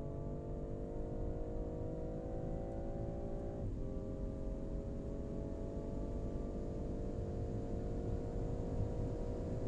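2020 BMW M340i's turbocharged 3.0-litre inline-six accelerating hard. The engine note climbs steadily, drops sharply at an upshift about four seconds in, then climbs again. Heavy wind and tyre noise runs underneath.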